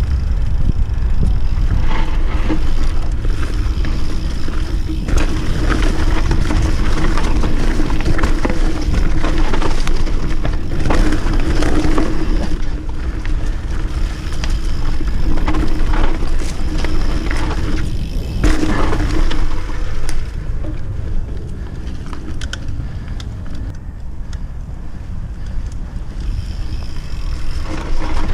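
Mountain bike ridden fast down a dirt downhill trail: a steady low rumble of wind on the action camera's microphone, with frequent knocks and rattles of the tyres and bike over bumps.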